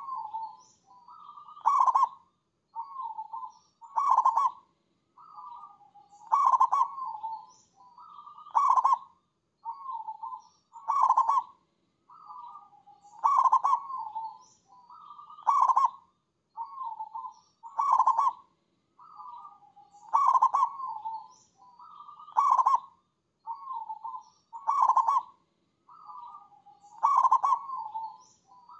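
Zebra dove (perkutut) singing its cooing song, the same phrase repeated about every two seconds: a soft lead-in followed by a loud, rolling coo, with short pauses between.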